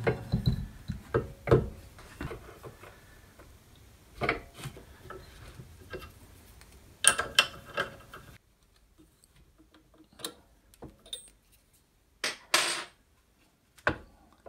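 Metal parts clinking and knocking while an aluminium quill guide bracket is fitted to a drill press and its screws are driven with an Allen key: scattered sharp clicks and taps, with a few louder knocks.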